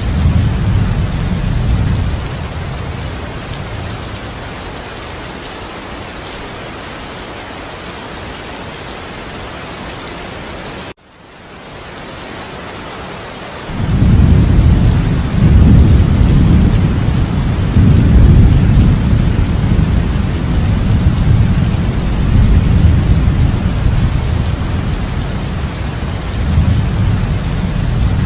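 Heavy rain falling steadily, with thunder. A rumble of thunder at the start dies away, the sound drops out briefly about eleven seconds in, and from about fourteen seconds long, loud rolls of thunder rumble on over the rain.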